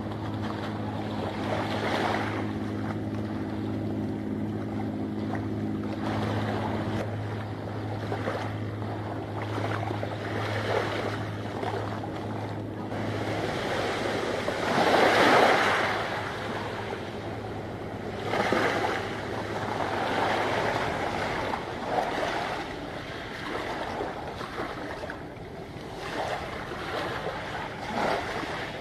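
Waterside wind buffeting the microphone over the wash of waves, surging now and then, loudest about halfway through. A low steady hum underneath stops partway through.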